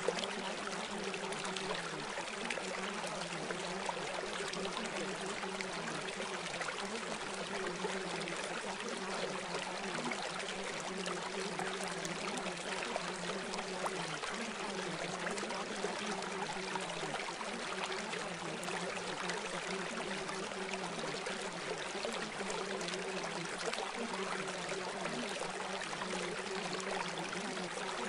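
Steady rushing noise like a flowing stream, unchanging throughout, with a faint wavering low hum underneath.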